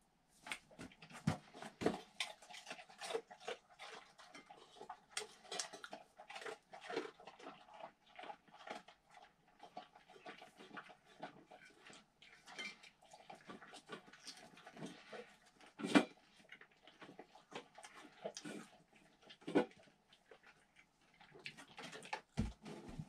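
Weimaraner eating and licking from a stainless-steel food bowl, with many quick, irregular clicks and taps of the bowl; the loudest knocks come about two-thirds of the way through.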